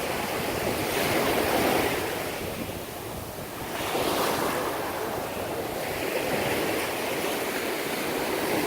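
Ocean surf washing ashore, the rushing noise swelling and ebbing in about three waves, with wind buffeting the microphone.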